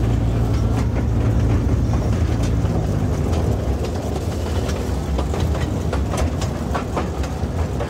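Toy train running on its small track, heard from on board: a steady low hum, with sharp clicks and rattles from the wheels on the rails in the second half.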